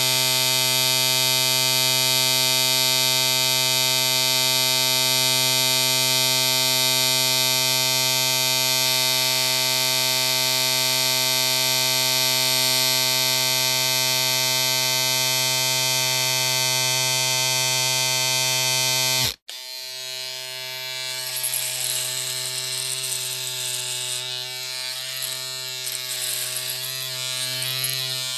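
Small electric appliance motor buzzing at a steady, fixed pitch. About two-thirds of the way through it cuts off abruptly, and a second, rougher buzz of similar pitch starts, wavering in level.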